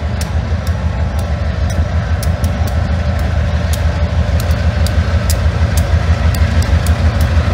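Freight train of covered hopper cars rolling slowly past, its wheels clicking sharply on the rails, over a steady deep rumble from the GE B36-7 and EMD MP15DC diesel locomotives shoving at the rear. The rumble grows gradually louder as the locomotives draw near.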